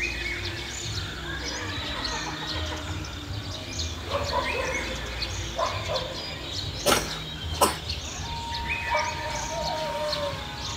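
Village ambience: small birds chirping throughout over a low rumble, with a few lower animal calls. There are two sharp knocks about seven seconds in, and a steady held tone starts about eight seconds in.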